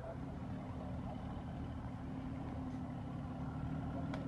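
A 4x4's engine running steadily at low revs, a low even rumble, with one short click near the end.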